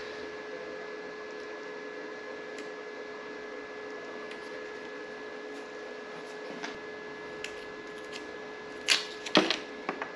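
Small parts being handled and fitted by hand: a few light clicks, then a quick run of louder clicks and knocks about nine seconds in, over a steady hum.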